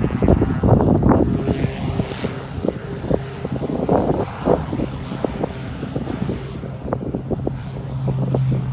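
Aircraft engine running with a steady low hum that grows stronger near the end, under irregular gusts of wind buffeting the microphone.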